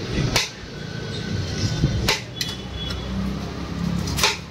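Metal serving utensils clinking and knocking against pots as biryani is dished out and packed, three or four sharp knocks a second or two apart, over a steady low hum of street noise.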